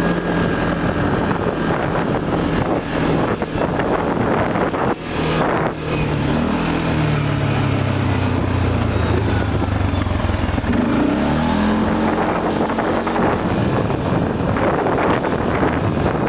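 Off-road vehicle engine running under load, its pitch shifting up and down midway, over a steady rumble of driving noise with scattered knocks.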